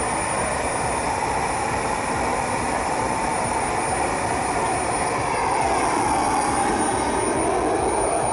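Small jet engine of a model jet car running with a steady roar and a thin high whine. About five seconds in, its note slides down and the sound grows slightly louder.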